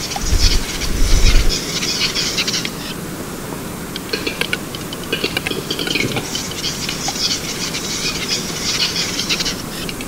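Male western capercaillie (wood grouse) display song: dry clicks and two long bouts of high, scratchy grinding, the whetting phrase. A low rumble comes in the first second and a half.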